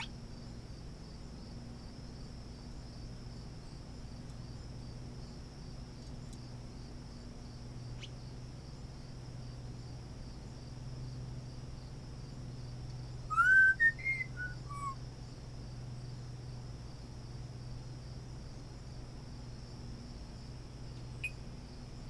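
African grey parrot giving a short phrase of loud whistled notes that slide up and down, about two-thirds of the way in. Underneath, a steady high insect trill and a low hum run throughout.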